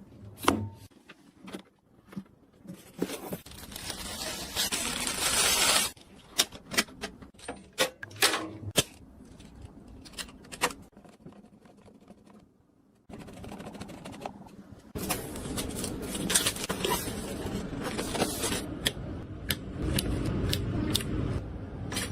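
Handling noises of computer parts during a PC build: sharp clicks, taps and scraping of small hard parts. The sound comes in sections that cut in and out abruptly, busier and denser in the second half.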